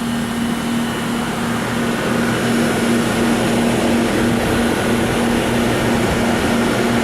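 American Standard outdoor air-conditioning condensing unit running: a steady rush of air from the condenser fan over a constant hum.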